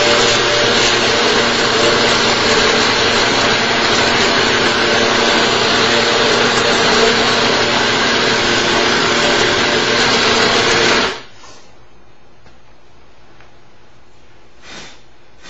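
Backpack-powered portable buffer/polisher spinning a white buffing pad: a loud, steady motor hum and hiss that cuts off suddenly about 11 seconds in. A faint brief swish follows near the end.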